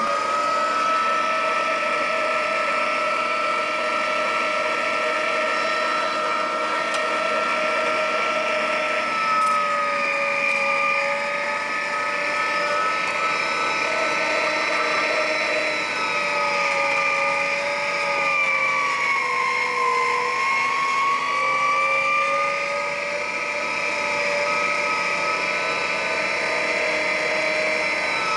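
Electric meat grinder running steadily with a motor whine, grinding mince. Its pitch sags a few times under load, most of all about twenty seconds in, then recovers.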